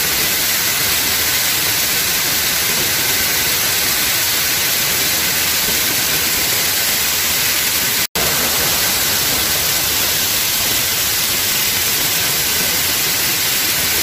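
Water rushing down a terraced waterfall and through the rapids around it: a steady, loud hiss with no let-up. The sound drops out for an instant about eight seconds in.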